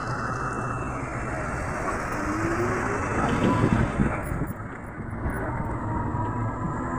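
Steady rumble and road noise of a moving rickshaw, heard from inside its open passenger cabin, dipping briefly a little past the middle.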